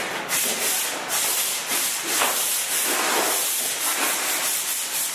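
Pole sander with 100-grit sandpaper scraping back and forth over dried drywall joint compound in repeated strokes, rough-sanding the lumps off a taped inside corner.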